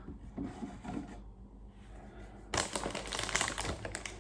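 A few soft knocks, then from about two and a half seconds in a dense, rapid crackling and clicking of plastic-bagged model-kit parts and their box being handled.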